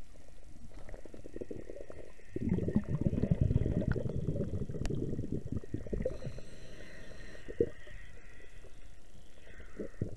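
Muffled underwater rumbling and gurgling of water and bubbles, heard through a camera submerged beside a boat hull. It grows louder and more crackly about two seconds in, with a few sharp clicks.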